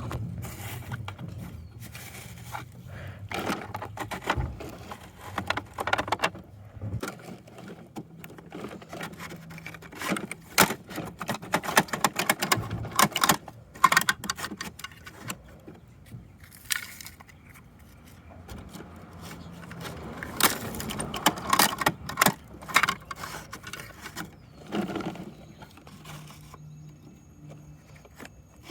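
Hard plastic toy parts clicking, rattling and scraping as a Bruder toy garbage truck and its bins are handled, in irregular clatters. A low hum runs under the first few seconds.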